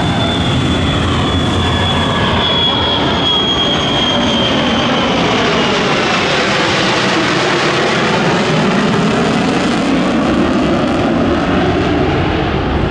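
Military jet making a low pass: a loud, steady jet roar with a high whine that slowly falls in pitch over the first half, and sweeping tones that bend as the aircraft goes by.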